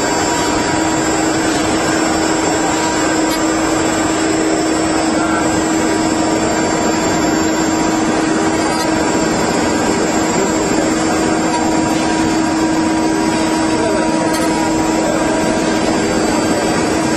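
Multi-spindle 4-axis rotary CNC router carving wood, its spindles running with a steady high-speed whine over a continuous hiss of the bits cutting.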